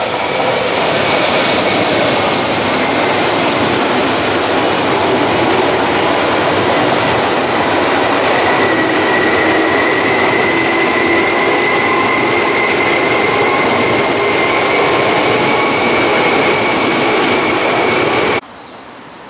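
Tokyu 8500 series electric commuter train running past at speed: steady rumble and wheel-on-rail noise with a high thin whine that rises slightly in pitch. The noise cuts off suddenly near the end.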